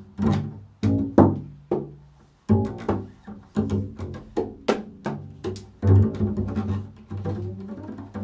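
Double bass played pizzicato: an improvised run of plucked low notes, a few each second, with a short lull about two seconds in.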